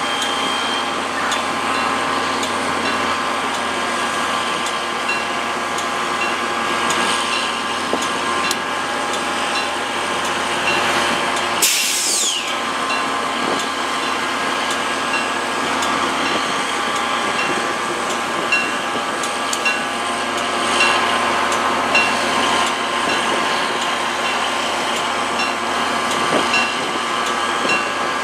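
NJ Transit GP40PH-2B diesel locomotive, an EMD 16-645 two-stroke, running steadily while standing still. A short, loud burst of air hiss comes about twelve seconds in.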